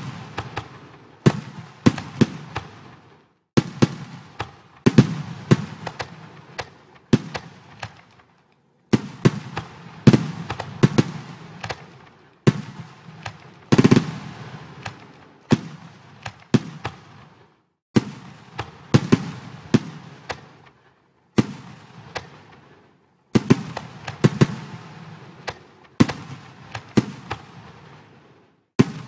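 Fireworks sound effects from a fireworks simulation program. Shells burst with sharp bangs and crackling tails, several in quick succession in each cluster. Between clusters the sound drops out to dead silence for a moment.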